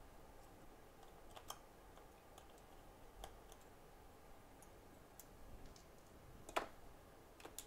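Near silence with a few faint, short clicks from handling an opened iPhone 7 and a precision screwdriver; the clearest click comes about six and a half seconds in.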